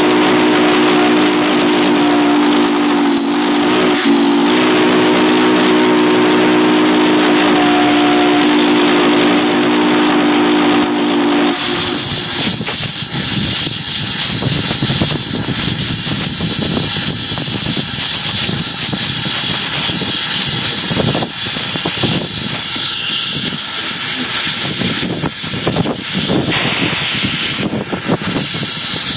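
Steam locomotive S.P.&S. 700's chime whistle held in one long blast of several tones at once, with a brief wobble about four seconds in, cutting off about eleven seconds in. After that the locomotive runs on with a loud steam hiss, rattling and a thin steady high whine.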